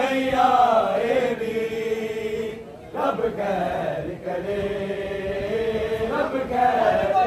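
A man chanting a noha, a Shia Muharram mourning lament, in long drawn-out melodic lines that glide between notes, with a short break just before three seconds in.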